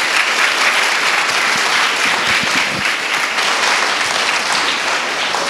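An audience in a large hall applauding, steady sustained clapping.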